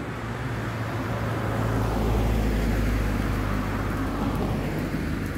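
A motor vehicle passing by: a low engine and road rumble that swells about a second and a half in, peaks, then fades.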